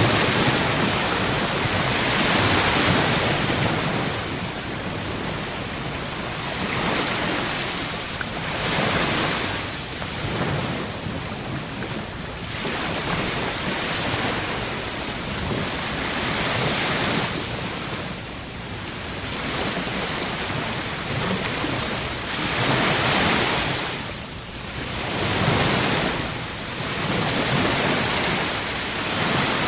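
Sea waves breaking and washing ashore, a steady surf rush that swells and falls every few seconds.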